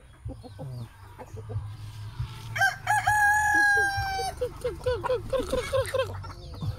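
A rooster crows once, about two and a half seconds in, a long held call lasting under two seconds. Right after it, chickens cluck in a quick run of short notes, about five a second.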